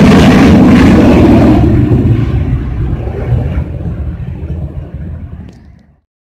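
Jet engine noise from a formation of Sukhoi Su-30 fighters passing overhead: loud at first, then fading steadily as the jets fly away from about two seconds in, and cut off abruptly near the end.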